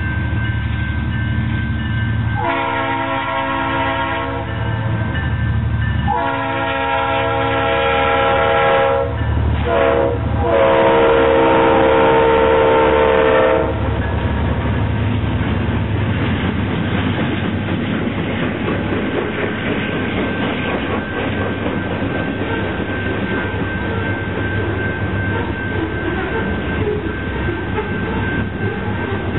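Leslie RS3L three-chime air horn on a Santa Fe Geep (GP38-2) locomotive sounding the grade-crossing signal: two long blasts, one short and a final long one, over the diesel engine. After the last blast the horn stops, leaving the locomotive's diesel engine and the rolling of the freight cars.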